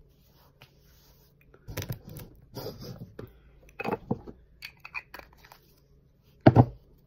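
Scattered rustling, scraping and clicking handling noises close to the microphone, with one short, loud low sound near the end.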